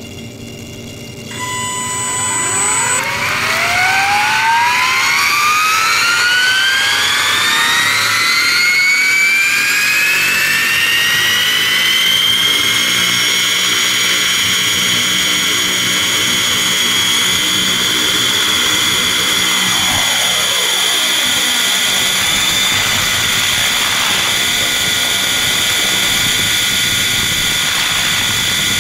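Radio-controlled helicopter spooling up: a sudden start about a second in, then a motor and gear whine that climbs steadily in pitch for about ten seconds and then holds at flight speed, heard close from the camera on board.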